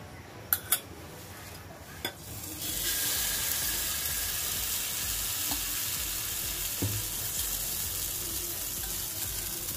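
A few light clicks of a utensil against a non-stick pan, then about two and a half seconds in, banana pancake batter poured into hot oil starts sizzling steadily.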